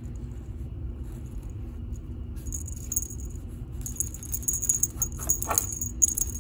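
Small metal jingle bell on a wand cat toy jingling in short bursts as the toy is shaken, starting a couple of seconds in, over a steady low hum.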